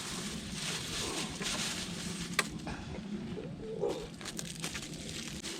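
Wood campfire burning with a steady hiss and scattered crackles, one sharp pop about two and a half seconds in.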